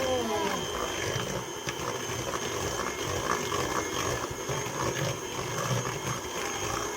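Electric mixer running steadily, beating cookie dough.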